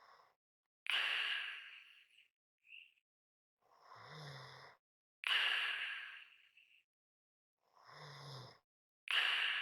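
A person's slow, heavy breathing, about three full breaths: louder breaths start suddenly and fade, alternating with quieter breaths that carry a low buzzing rasp, almost a snore. A light whistle sounds in the breath, with a short whistle tone between breaths.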